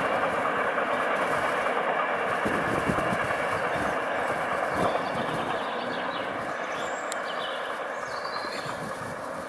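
Freight train of tank wagons rolling away along the track, the noise of its wheels on the rails slowly fading.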